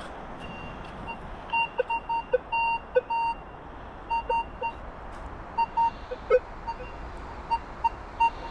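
Minelab Vanquish 540 metal detector giving a run of short, irregular beeps at a higher and a lower pitch, a few held a little longer, as it is passed over a target.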